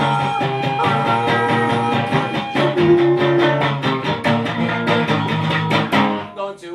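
Guitar strummed fast and steadily, with held notes ringing over the strumming. The playing thins out briefly near the end.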